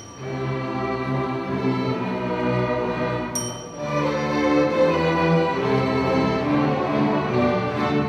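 String orchestra playing bowed strings. A single bright bell ding about three and a half seconds in is the cue for the orchestra to switch mid-phrase to a different tune.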